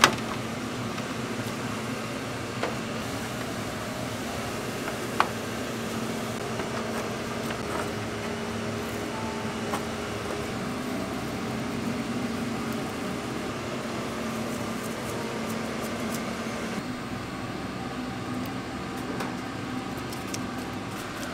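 Steady hum of kitchen machinery with a few sharp clicks and knocks, the loudest at the very start and another about five seconds in.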